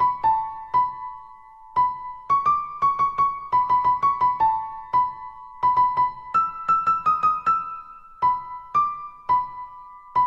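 Background music: a light keyboard melody of short, quickly fading notes in a steady rhythm, played in phrases with a brief pause between them.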